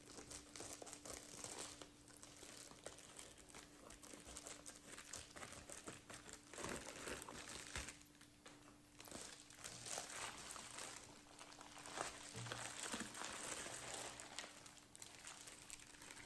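Packaging crinkling and rustling in irregular spells as a mail package is cut open and a cross-stitch kit is handled out of it.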